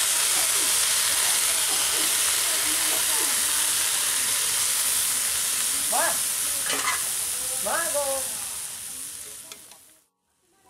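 Wet bathua leaves dropped into hot oil in a blackened wok, sizzling loudly as the greens go in and are stirred. The hiss dies down over the last couple of seconds.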